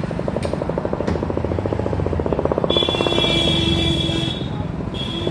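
Motorcycle engine running as the bike rides along, with a fast even firing pulse. A vehicle horn sounds for about a second and a half in the middle, and another horn starts near the end.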